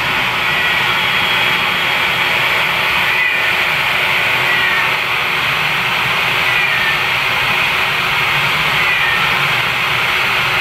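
Hairdryer blowing steadily on a cat's fur, with the cat meowing faintly several times over it.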